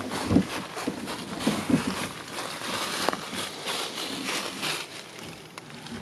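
Camco Rhino plastic waste tote tank pulled on its wheels over dry fallen leaves, with footsteps through the leaves: an irregular rustling with many small clicks and scrapes.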